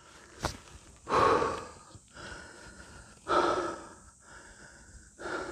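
A person breathing heavily: three long, noisy breaths about a second, three seconds and five seconds in, the first two the loudest, out of breath from climbing in the heat. A short click about half a second in.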